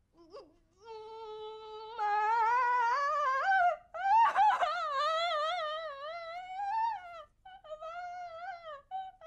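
A woman wailing in tears: long, high, wavering cries that grow louder about two seconds in, break off briefly, then trail into shorter sobbing cries near the end.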